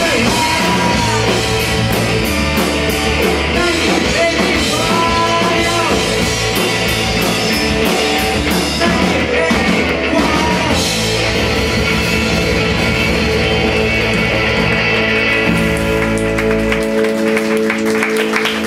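Live punk rock band playing loudly with vocals, electric guitars, bass and drums. Near the end the bass and drums drop away and the guitars ring on a held chord.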